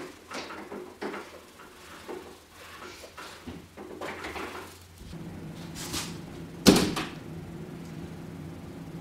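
Tulle fabric rustling in short bursts as it is handled and gathered at the waist of a dress form, with one sharp knock about two-thirds in. A steady low hum sets in about halfway.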